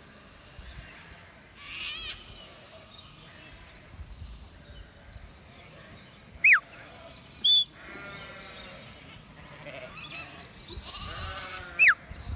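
Sheep bleating in a flock, with three loud, sharp whistles: two falling from high to low and one short level note between them. The whistles are a handler's commands to a working sheepdog.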